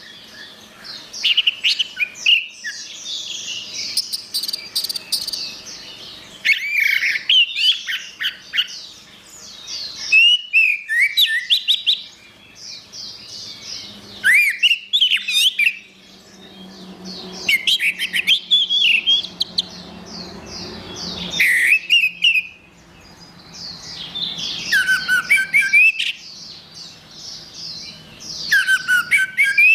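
Orange-headed thrush (anis merah) singing. It gives a series of fast, varied phrases of whistled notes and quick trills, each lasting one to three seconds, separated by short pauses.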